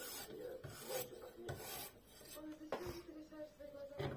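Opinel knife blade being sharpened: repeated rasping strokes of steel scraping along an abrasive, coming at an uneven pace of roughly one or two a second.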